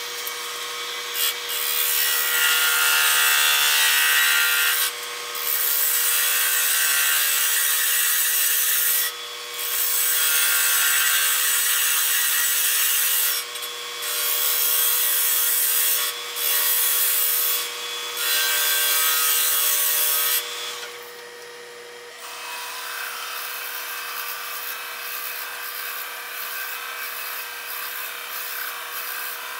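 Wood lathe running with a steady hum while a turning tool cuts the spinning cherry urn blank in repeated passes of a few seconds each, with short breaks between. About 22 seconds in, the sound changes to a drill bit in a tailstock chuck boring into the end of the spinning wood, a quieter, even scratching.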